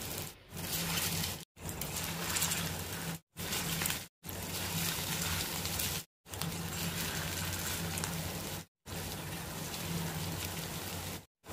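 Masala-coated chicken pieces sizzling and bubbling in hot oil in a frying pan as more pieces are laid in. It is a steady hiss, broken by several brief dead-silent gaps, over a low steady hum.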